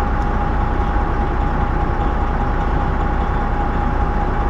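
Semi-truck's diesel engine idling steadily, a constant low rumble with a steady whine held on one pitch.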